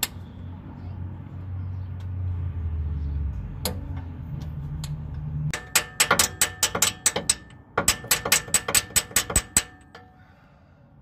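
Hammer driving a steel core (freeze) plug into the engine block of a Chevy 454 big-block: two quick runs of sharp, ringing metal strikes, about six a second, with a short pause between them. They start about halfway in, after a low steady hum.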